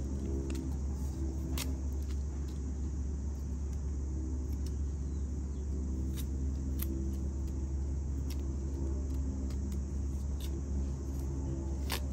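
Knife cutting into and stripping the skin off a cassava root: scattered sharp cracks and scrapes as the bark-like peel splits away, over a steady low rumble.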